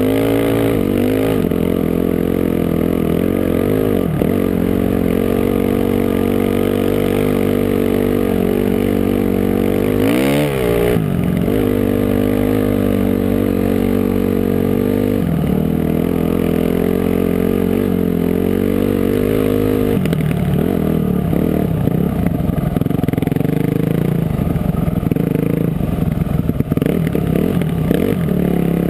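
Dirt bike engine running on a trail ride, its pitch rising and falling with the throttle, with a quick rev up and down about ten seconds in. In the last third the engine sound turns choppier and uneven.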